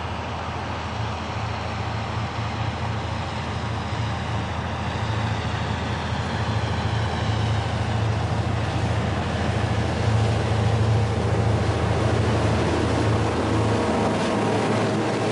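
EMD SW1200 switcher locomotive's V12 two-stroke diesel engine running with a steady low drone as it approaches, growing louder. Near the end the locomotive passes: the engine drone drops away and clicks from the wheels of the trailing cars on the rails take over.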